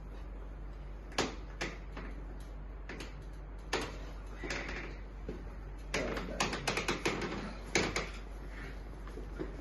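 Chiropractic treatment table creaking and clicking under the patient during a spinal adjustment. A scatter of sharp clicks and short creaks, thickest around six to seven seconds in, over a steady low electrical hum.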